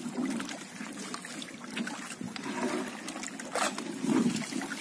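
Seawater trickling and splashing off a bamboo-and-net fish trap being hauled up alongside a boat, with a few short knocks.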